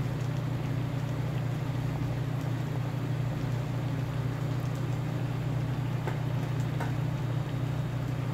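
Water at a rolling boil in a wide pot on the stove, over a steady low hum from kitchen equipment.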